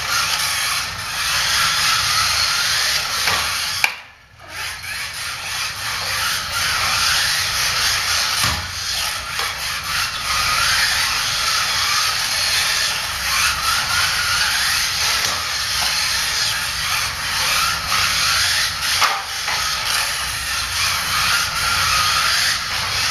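Kyosho Mini-Z electric RC race cars running on a carpet track: the small electric motors whine high, rising and falling with the throttle, over a steady hiss. The sound cuts out briefly about four seconds in.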